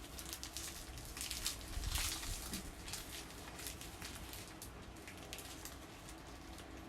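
Faint rustling and crinkling of parcel wrapping being handled, with scattered small clicks and a denser rustle about two seconds in.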